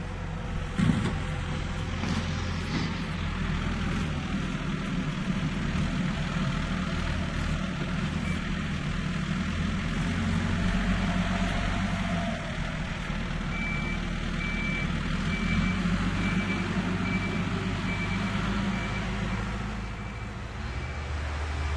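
Tractor engine running at idle with a steady low rumble, a sharp knock about a second in. Through the second half a faint high beep repeats about once a second.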